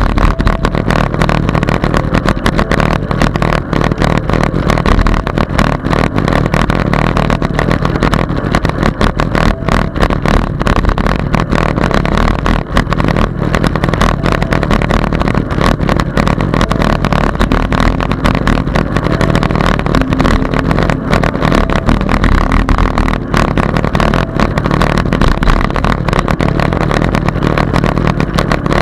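Wind and road noise on a bicycle-mounted camera while riding: a loud, steady rumble with constant fine rattling from the bike over the road surface.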